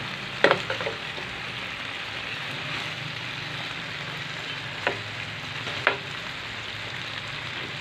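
Chicken pieces in a sticky barbecue marinade sizzling steadily in a hot double-sided frying pan. A metal fork clinks sharply against the pan four times as the pieces are turned: twice near the start and twice about five and six seconds in.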